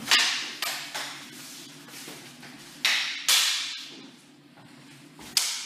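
Cutlass blades clashing in sparring, short ringing metal clashes that die away. Three come in the first second, two more about three seconds in, and a last one near the end.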